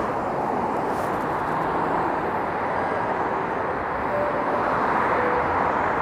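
Steady rush of dense traffic on a multi-lane city highway.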